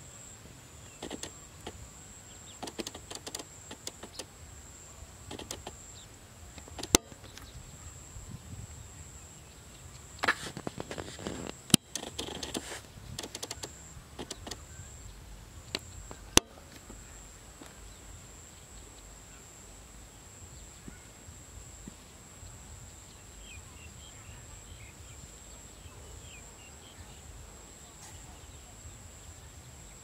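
Open-field ambience: a thin steady high-pitched whine, scattered soft rustles and knocks in the first half, three sharp clicks, and faint bird chirps near the end.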